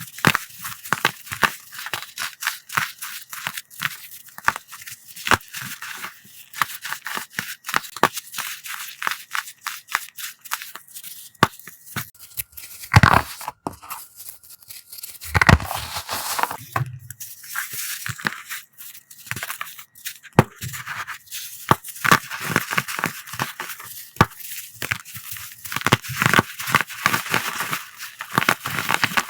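Coloured gym-chalk blocks being crushed: a dense run of crisp crunches and crackles, with an occasional slight squeak. A couple of louder crunches come about halfway through.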